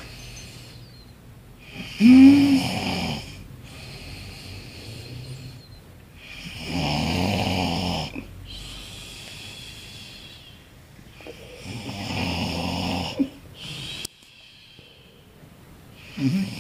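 A sleeping man snoring loudly on each in-breath, about four long rattling snores roughly five seconds apart, with quieter breaths between them. The first snore, about two seconds in, is the loudest.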